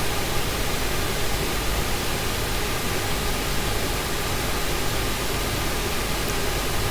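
Small fischertechnik electric motor running steadily under pulse-width-modulation control, a constant whirring hiss with faint steady whining tones.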